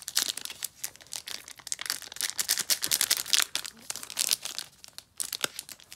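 Foil wrapper of a trading card pack crinkling and tearing as it is torn open by hand: a dense, irregular run of crackles that thins out near the end.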